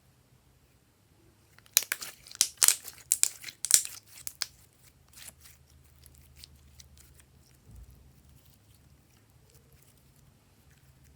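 Glossy slime squeezed and pressed by hand, giving a quick run of sharp wet crackles and clicks about two seconds in, which thin out to a few faint clicks.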